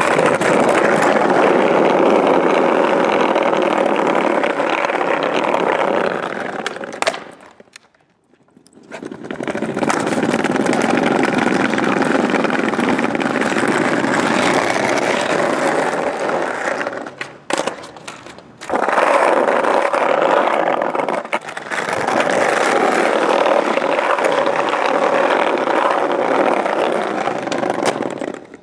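Skateboard wheels rolling over brick block paving: a continuous rough rolling noise that drops out briefly about eight seconds in and again around seventeen to nineteen seconds in.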